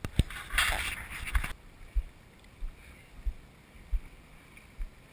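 Shallow water lapping and splashing against a camera sitting at the waterline, with a rush of splashing in the first second or so, then soft low thuds about every two-thirds of a second.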